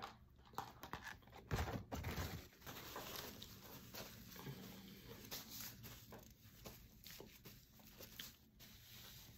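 Faint handling noises close to the microphone: a brief bump and rub about a second and a half in as an arm brushes past the phone, then quiet rustles and small clicks.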